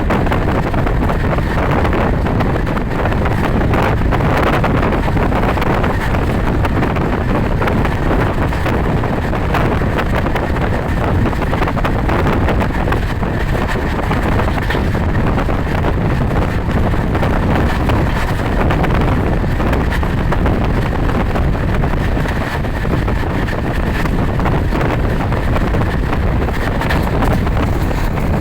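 Steady wind rushing over the microphone, mixed with the running noise of a moving vehicle, without a break.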